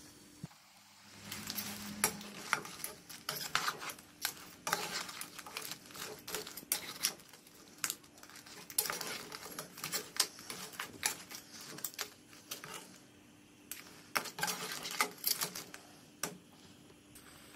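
A spoon stirring crab pieces in a pan of sauce, knocking and scraping against the pan and the shells in irregular bursts of clatter, with short pauses between.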